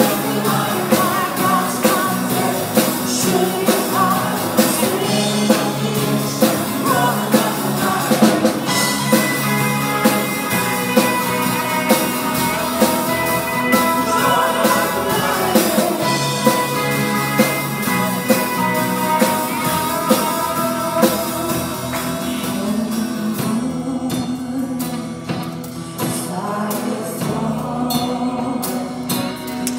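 Live worship band playing a rock-style song: drum kit, electric and acoustic guitars, with a woman singing lead and other voices singing along. The drums drop back for a few seconds near the end.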